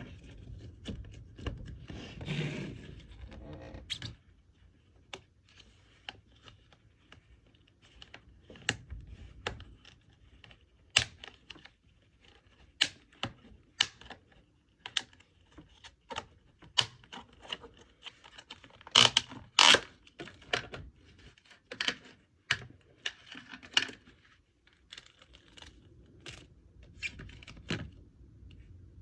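Irregular sharp clicks, taps and crackles from a slime kit being assembled by hand: slime being mixed and its containers handled. A rougher crackling stretch comes in the first few seconds, and the two loudest clicks fall close together about two-thirds through.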